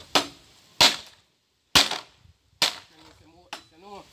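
Machete blade chopping into a bamboo pole: five sharp, loud cracks, roughly one a second.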